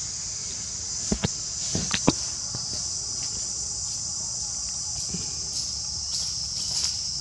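Steady, high-pitched chorus of insects buzzing. A few short, sharp clicks or crunches sound about one and two seconds in.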